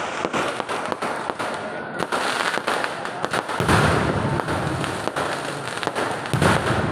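Fireworks display: a rapid, dense string of sharp firecracker bangs and crackling, swelling into louder, deeper volleys about halfway through and again near the end.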